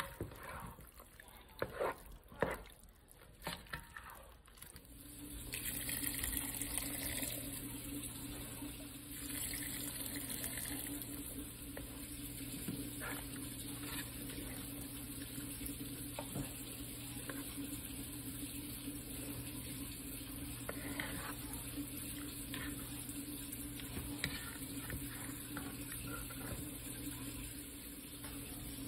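A spoon knocks and scrapes in a metal soup pot of ground beef and diced tomatoes for the first few seconds. Then a steady low hum sets in with a water-like hiss over it, loudest in two short spells soon after.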